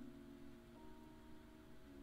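Faint background music: a few held notes that move to new pitches at the start and again shortly before the end.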